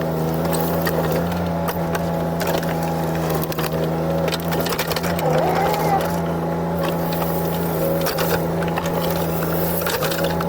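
JCB 8026 mini excavator's diesel engine running steadily under working load, with a brief rising-and-falling whine about halfway through.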